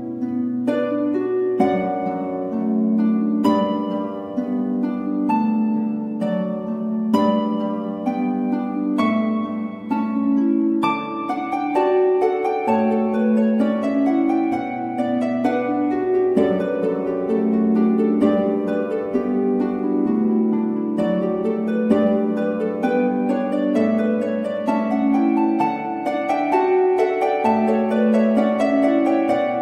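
Instrumental background music: a steady run of plucked notes over held low notes.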